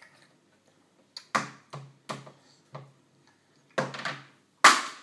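Sharp, irregular knocks of a toddler banging on a plastic high-chair tray, about seven in a row with the loudest near the end.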